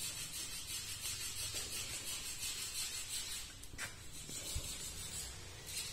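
Quiet workshop background noise with a sharp click just under four seconds in and a soft low knock shortly after, typical of handling a lathe carriage and a dial indicator by hand.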